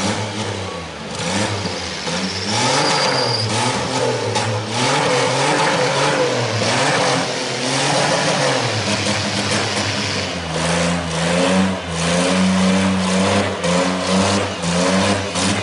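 Demolition derby cars' engines revving hard, the pitch rising and falling again and again as the wheels spin in the mud; from about ten seconds in one engine holds a steadier high note.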